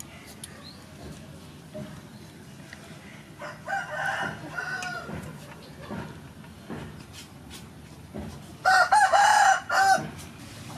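A rooster crowing twice: a softer crow a few seconds in and a loud one near the end. Faint clicks and taps run beneath, from a fork working snail meat out of its shell over a metal tray.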